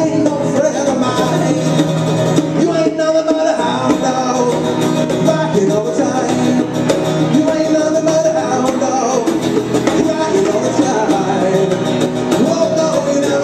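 Live acoustic duo playing a song: a strummed acoustic guitar and bongos, with a man singing over them.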